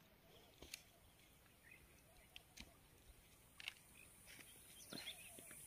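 Near silence: faint riverside ambience with a few soft, scattered clicks and faint short bird chirps.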